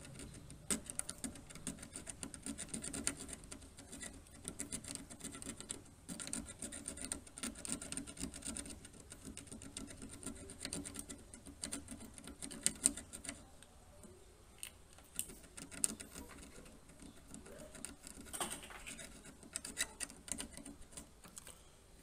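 Cutter blade scraping the paint coating off the data traces along an LCD panel's source circuit board to bare the copper: rapid, uneven scratching strokes, dense at first and thinning out with short pauses about halfway through.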